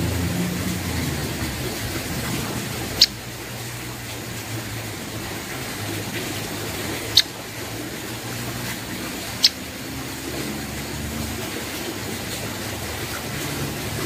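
Steady low background rumble and hiss, broken three times by a single short, sharp, high-pitched chip, the second about four seconds after the first and the third about two seconds later.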